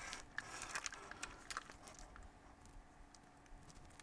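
Hands handling two mirrorless camera bodies, a Sony A7R III and an FX30: light clicks and rubbing of fingers on the bodies, mostly in the first two seconds, then only faint scattered ticks.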